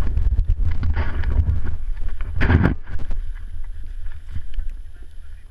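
Snowboard sliding and scraping over snow, with heavy wind buffeting on the action camera's microphone; the noise swells louder about two and a half seconds in.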